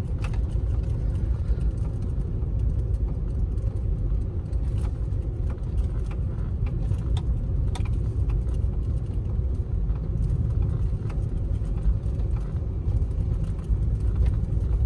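Car moving slowly, heard from inside the cabin: a steady low road and engine rumble with a few faint clicks and rattles.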